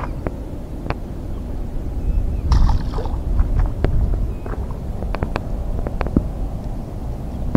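Mesh keep net pulled up out of the water, with a short burst of splashing and streaming water about two and a half seconds in, then scattered light clicks as it is handled on the rock. A low wind rumble on the microphone runs underneath.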